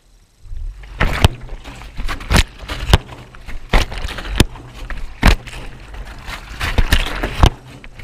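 Miele front-loading washing machine drum starting to turn after a pause in the wash cycle: a low rumble with the wet load sloshing and tumbling, and hard knocks every half second or so as the tumbling load strikes the steel drum.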